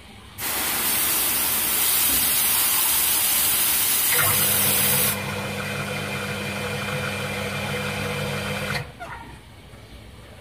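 Water jetting hard from a garden-hose spray nozzle, a loud hiss that starts about half a second in and cuts off suddenly near the end. About four seconds in, a steady motor hum joins it, and a second later the hiss loses its brightest top.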